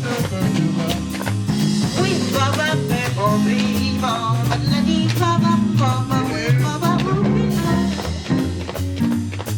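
Band music with drum kit, bass and guitar, with a lead melody line wavering in pitch over it.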